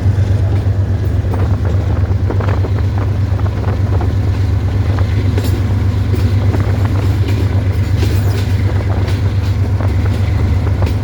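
GE U20C (Pakistan Railways GEU-20) diesel-electric locomotive running with a steady, loud low engine drone, with scattered short clicks and knocks over it.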